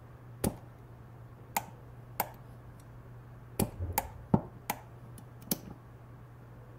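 About eight sharp metallic clicks, irregularly spaced and bunched in the middle, from an AR-15 lower receiver's Elftmann ambidextrous push-button speed safety and skeleton trigger being worked by hand, the safety pushed between fire and safe and the trigger tried against it.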